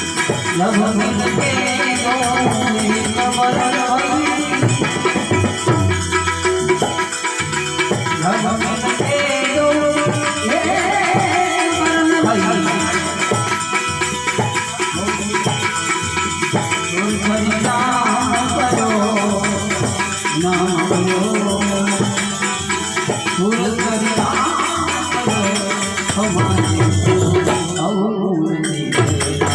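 Harmonium playing a devotional song melody, accompanied by a steady rhythm with a shaker-like rattle.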